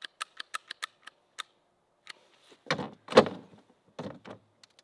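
Jammed Glock 19 pistol being worked by hand to free a round stuck in it: a quick run of small sharp metallic clicks, then heavier knocks as the pistol is pressed and pushed against a table, the loudest about three seconds in.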